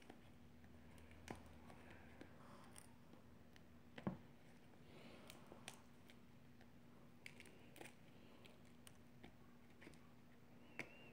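Near silence with faint scattered clicks and taps from a small plastic slime container with a snap-on lid being turned and handled; the loudest click comes about four seconds in.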